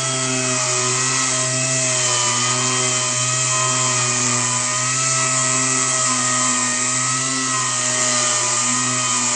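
Power sander running steadily at a constant, slightly wavering pitch, sanding primer off a steel car fender.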